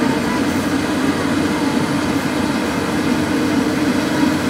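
Komatsu crawler excavator's diesel engine running steadily, a constant drone, while it works its boom and bucket.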